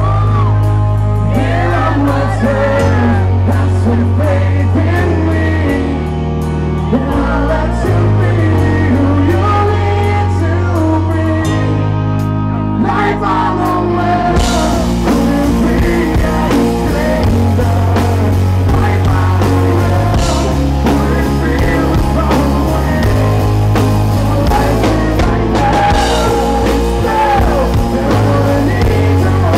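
Live rock band playing, with a male lead singer over guitar and bass. About halfway through, the sound gets fuller and brighter as the whole band plays harder.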